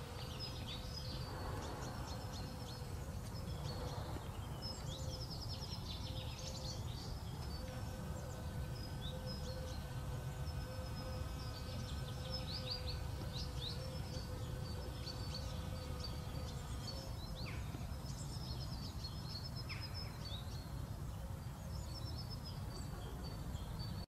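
Outdoor spring ambience: many small birds chirping and twittering over a steady low background rumble, with a faint steady hum underneath.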